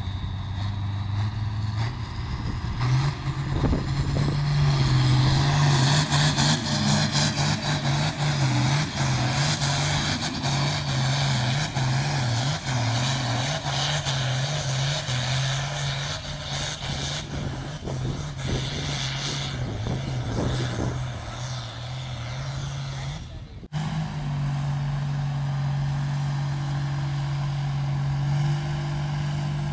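Pulling vehicle's engine running hard under heavy load, a strong steady engine note with a loud rushing noise over it that is loudest in the first half. About three-quarters through the sound drops out for an instant, then a steady engine note carries on.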